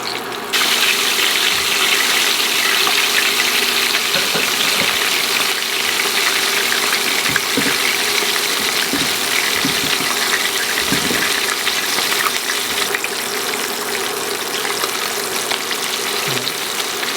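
Chicken breast deep-frying in hot oil: a steady sizzling hiss with scattered small pops and crackles. It starts abruptly about half a second in.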